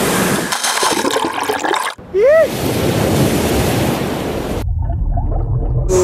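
Heavy surf: a large hollow wave breaking and rushing white water, in two stretches split by a brief cut about two seconds in, with a short rising-and-falling tone just after the cut. Near the end the sound turns to a muffled low rumble.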